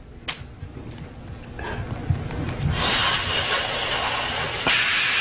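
A single sharp click, then a long hissing breath drawn in through a small smoking pipe, building from about a second and a half in and loudest over the last two seconds.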